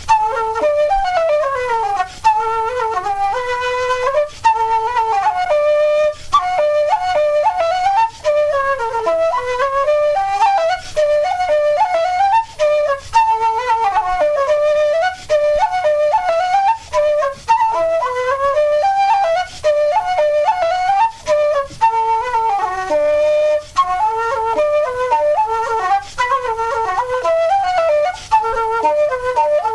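Flute playing a brisk Irish traditional tune as a single quick-moving melody, with many brief breath pauses between phrases.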